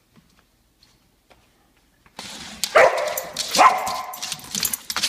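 Dog barking twice, about a second apart, a little past halfway through, with scuffling and clicking noises around the barks.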